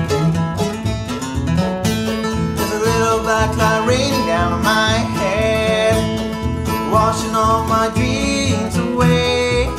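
Acoustic bluegrass band playing an instrumental break: guitar, mandolin and double bass, with a steady plucked bass pulse under a sliding, picked melody line.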